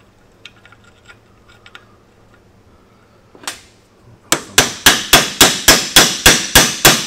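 Hammer blows on a Mac Tools RBRT extractor socket, driving it down onto a rounded-off bolt head: a rapid, even run of ringing metal strikes, about three or four a second, starting about four seconds in. Before that, a few light metal clinks as the socket is set on the bolt.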